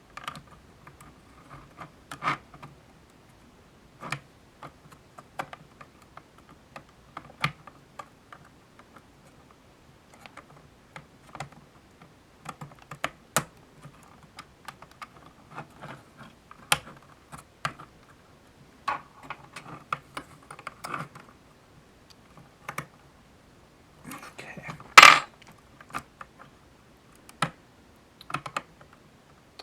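Acrylic case panels and small parts clicking, tapping and clacking while being handled and stacked together, in irregular light clicks with one louder clack about 25 seconds in.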